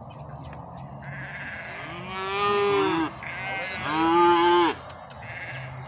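Six-month-old calf bawling twice, each call about a second long.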